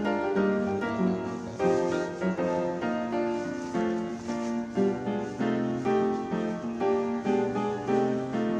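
Background piano music, a steady run of notes with no pause.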